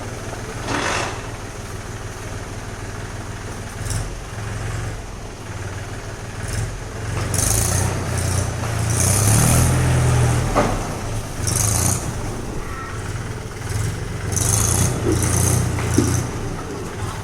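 A heavy vehicle's engine running steadily, getting louder around the middle, with several short bursts of high hiss over it.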